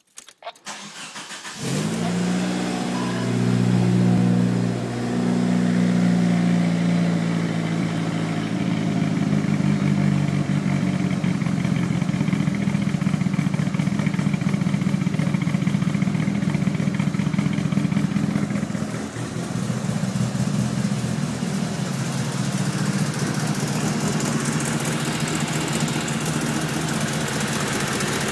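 Mitsubishi Lancer Evolution I's turbocharged 4G63T four-cylinder, built with forged internals and 264 cams, cranks briefly and catches about two seconds in, then idles rough and uneven, its level wavering up and down.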